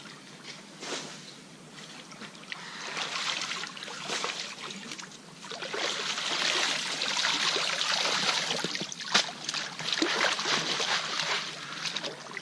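Creek water splashing and trickling through a sifting screen, with gravel rattling and clicking in it as it is shaken. It grows louder a few seconds in.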